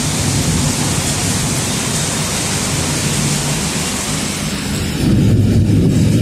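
Heavy rain pouring steadily over a low rumble. About five seconds in, the hiss thins and the low rumble grows louder.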